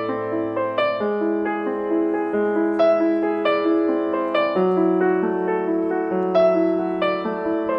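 Background piano music: single notes and chords struck about once or twice a second, each left to ring on under the next.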